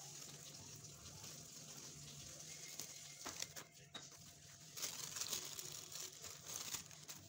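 Crinkling of a thin plastic bag being handled, with scattered small crackles, louder and busier from about five seconds in.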